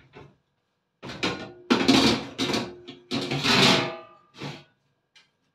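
Metal baking tray scraping and clattering against the oven rack as it is slid back into the oven, in a few rough, ringing strokes, then a short knock.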